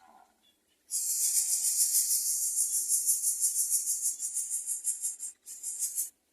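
Greater coucal nestling hissing loudly in quick pulses, about four a second, with a brief break near the end before a last short burst. This snake-like hiss is the typical defensive sound of a disturbed coucal chick.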